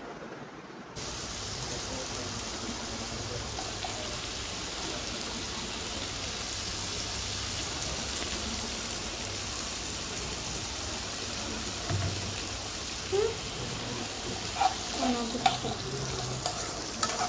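Diced potatoes frying in oil with onion-tomato masala in a nonstick kadai: a steady sizzle that starts about a second in. Near the end a steel spoon stirs them, with sharp clacks and scrapes against the pan.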